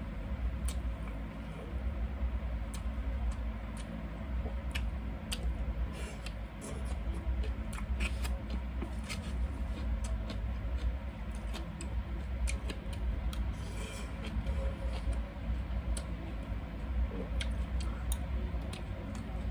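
Close-miked eating: irregular sharp, crisp clicks of chewing and biting over a steady low hum.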